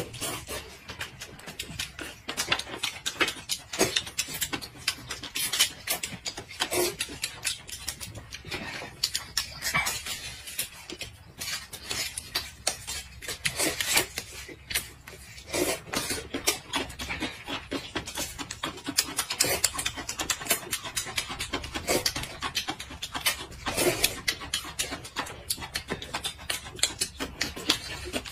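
Two people slurping rice noodles and chewing, a dense run of quick mouth clicks and slurps with an occasional louder one.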